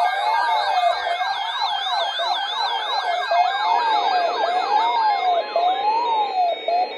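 Several electronic sirens sounding together, their pitch sweeping up and down about once a second, with faster yelping sweeps higher up. The sirens fade out near the end.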